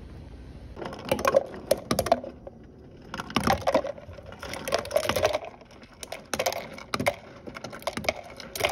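Rapid light clicks and taps in about five short bursts with brief pauses between.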